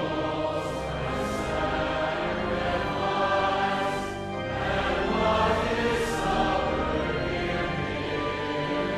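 Music with a choir singing held chords.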